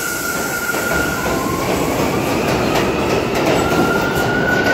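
R179 subway train pulling out of the station past the platform and gaining speed: a loud steady rumble of wheels and motors. A thin high tone fades about a second in and comes back near the end.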